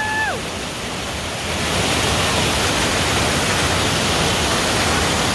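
Steady rush of a waterfall's falling water, growing louder about two seconds in.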